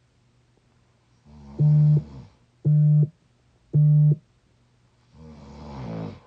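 Snoring from a deeply sleeping young person: a rasping snore, then another that swells and cuts off near the end. In between come three short, loud, identical steady-pitched tones about a second apart, the loudest sound here.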